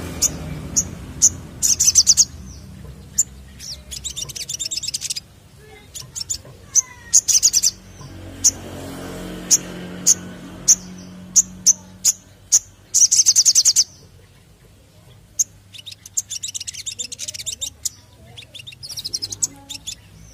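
Male olive-backed sunbird singing: sharp, high single chip notes at irregular intervals, broken by several short, fast trills of about half a second to a second each.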